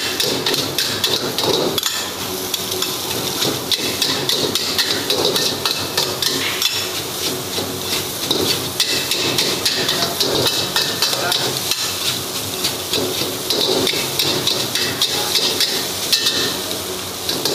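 Steel ladle and wok spatula clattering and scraping rapidly against a carbon-steel wok while stir-frying rice, in quick, continuous strikes over a steady hiss.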